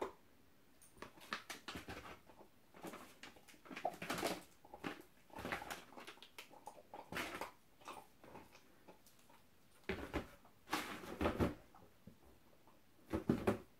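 A dog chewing a mini rawhide-and-chicken chew knot, in irregular bursts of crunching.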